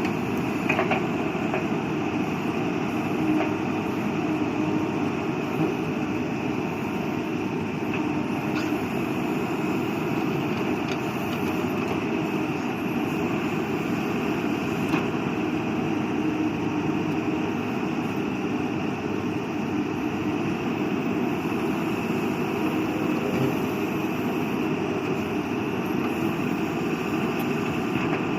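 ACE AX 124 backhoe loader's diesel engine running steadily, with a few faint clicks.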